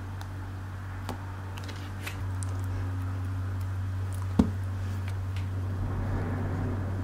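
Steady low hum with a few faint clicks, and one sharp click about four and a half seconds in.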